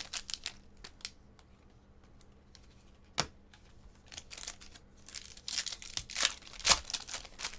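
Trading-card packs crinkling and cards being handled and flicked through by hand: irregular clusters of quick clicks and rustles, with one sharp snap about three seconds in.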